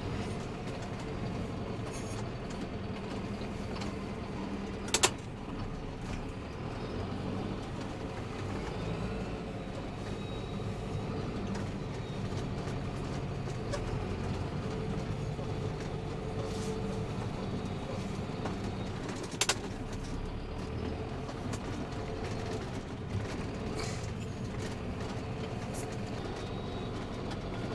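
John Deere tractor engine running steadily while the tractor pushes snow with a front-mounted plough. Two sharp knocks cut through, about five seconds in and again some fourteen seconds later.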